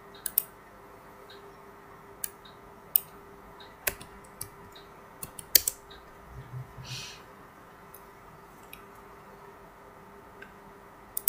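Computer keyboard key presses and mouse clicks: a dozen or so sharp, irregular clicks as a dimension value is typed in and confirmed, over a faint steady hum.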